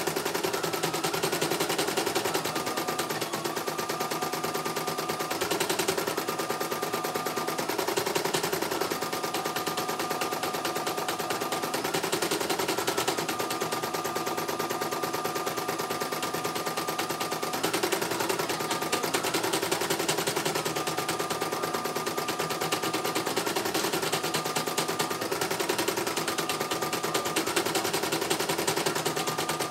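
CNY E900 portable computerized embroidery machine stitching a design: a rapid, even run of needle strokes with a whining drive tone that lifts briefly every few seconds.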